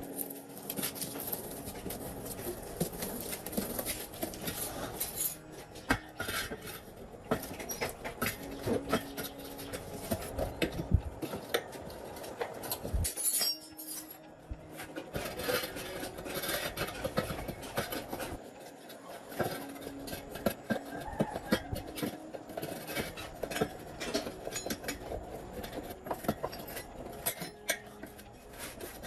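Metal tools and parts clinking and knocking against each other in irregular taps, the sound of hand work on metal wheel parts.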